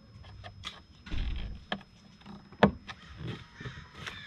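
Hands seating the MAF sensor housing against the rubber coupler of an aftermarket cold air intake: scattered plastic clicks and knocks, with a short low rumble a little after a second in and one sharp click about two and a half seconds in.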